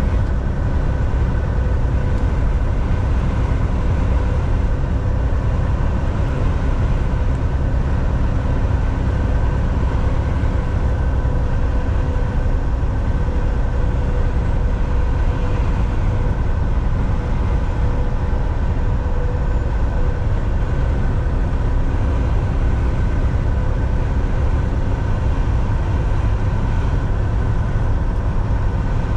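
Semi truck cruising at steady speed on a highway: a constant low drone of engine and road noise with a steady hum over it.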